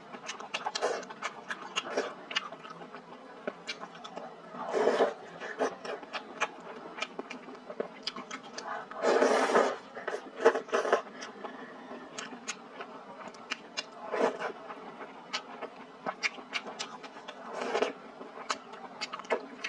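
A person eating noodles in broth with chopsticks: a few loud slurps, the longest about nine seconds in, between many short wet chewing and lip-smacking clicks.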